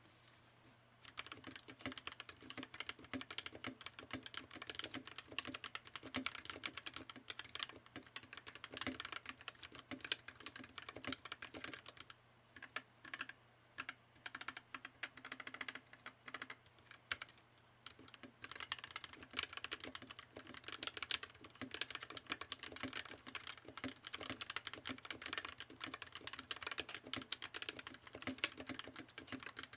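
Typing on a TMOv2 40% custom mechanical keyboard with a polycarbonate case and POM Jelly keycaps: a fast run of key clacks starting about a second in, with a couple of brief pauses.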